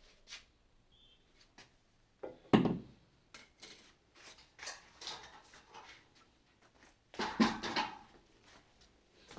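Door of an acoustic test booth being worked: two heavy thuds, about two and a half and seven seconds in, with lighter clicks and knocks between them.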